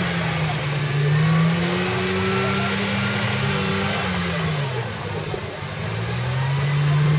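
Off-road trial truck's engine revving hard under load as it crawls over rough ground. The revs drop and ease off about four to five seconds in, then build again near the end.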